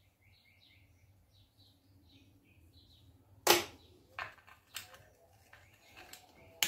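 Wrench clicking against the 10 mm crankcase bolts of a Gilera 200 engine as it is fitted and worked loose. There is one sharp metallic click about halfway in, then four or five lighter clicks toward the end.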